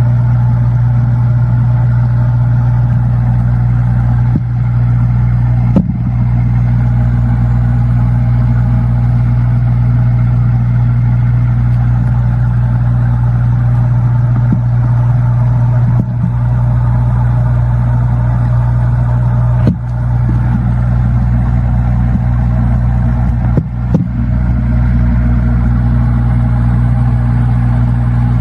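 Steady low motor-like hum, with a handful of short knocks scattered through.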